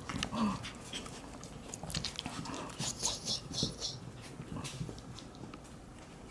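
Month-old Shiba Inu puppies making short high-pitched squeaks, a quick run of about five about three seconds in, among light clicks and taps of paws on the floor.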